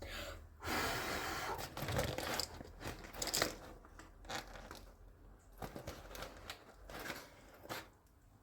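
Packaging crinkling and tearing, loudest about a second in, followed by scattered crunches and short rustles.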